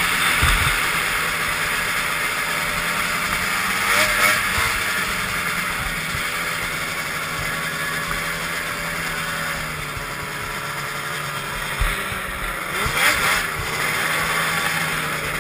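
Arctic Cat snowmobile engine running at low speed, heard from the rider's seat, its pitch rising and falling briefly as the throttle is blipped a few seconds in and again near the end, over a steady hiss of wind and track.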